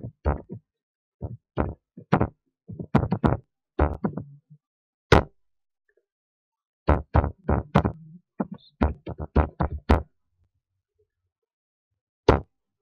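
Computer keyboard typing: quick runs of key clicks with short pauses between runs, a longer pause about three-quarters of the way through, then a single keystroke near the end.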